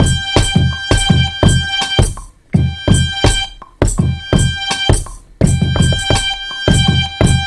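A beat made on a Maschine Studio groovebox playing back: drum-machine kicks and hits under a sustained pitched sample, cutting out briefly a few times.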